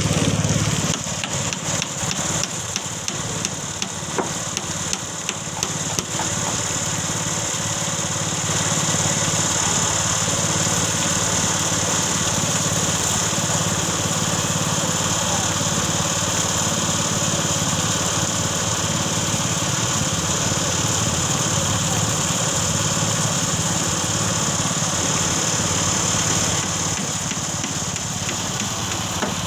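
A small engine running steadily, with a continuous high hiss over it and a few light clicks in the first few seconds.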